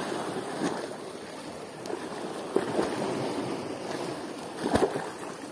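Seawater lapping and splashing against shoreline rocks, a continuous restless wash, with a louder thump near the end.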